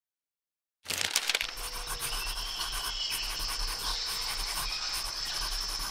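Nature ambience of insects chirring steadily in a pulsing rhythm, with a faint bird chirp, starting after a moment of silence. A few quick clicks come just as it begins.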